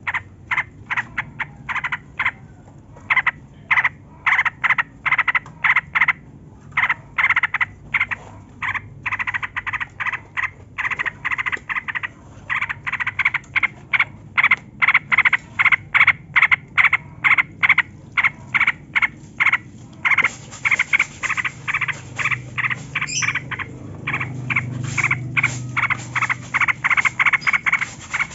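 Yellow-vented bulbul (trucukan) singing a long, rapid run of short chattering notes, about four a second, as in a recording used to prompt caged birds to sing.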